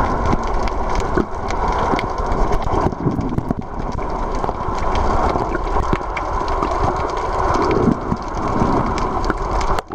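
Underwater sound picked up by a camera in its housing: dense water rushing and bubbling with frequent small clicks and knocks as the swimmer moves and struggles with the fish. It drops away suddenly just before the end.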